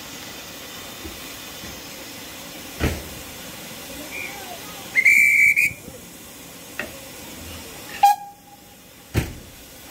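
BR Standard Class 2MT steam locomotive standing with a steady hiss of escaping steam, and a short high whistle blast about five seconds in. The hiss cuts off sharply about eight seconds in, with a few clanks along the way.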